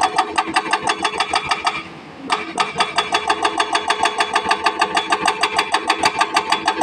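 Hydraulic rock breaker on a Sany excavator hammering at rock in a fast, even run of ringing metallic blows, about eight a second. The hammering stops for about half a second around two seconds in, then starts again.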